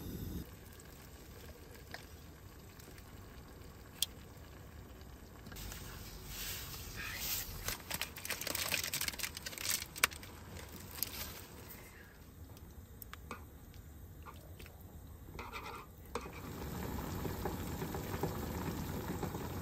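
Hotpot of vegetables and pork cooking in a frying pan on a portable cassette gas stove: a stretch of crackling sizzle with a few sharp clicks in the middle, then a steady bubbling simmer over the last few seconds.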